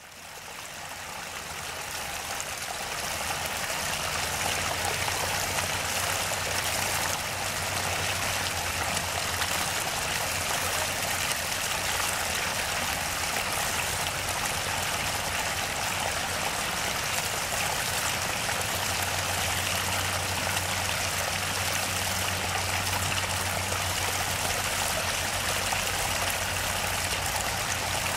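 Small stream of water trickling and splashing over rocks, a steady rushing that fades in over the first few seconds, with a low steady hum beneath it.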